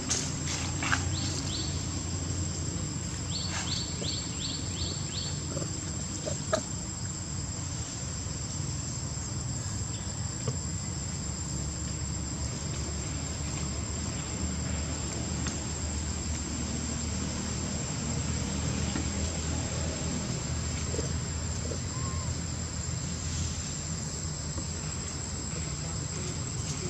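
Insects droning on one steady high-pitched tone, with a low background rumble and a few faint clicks; a short quick run of ticks comes about three and a half seconds in.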